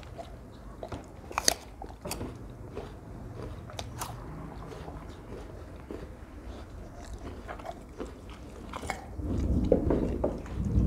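Rottweilers crunching and chewing pieces of raw jicama, with sharp crunches scattered through and heavier chewing near the end.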